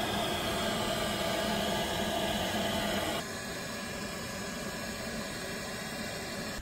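Steady whir and hiss of an air blower feeding a backyard charcoal metal foundry, with a faint low hum, dropping to a quieter hiss about three seconds in.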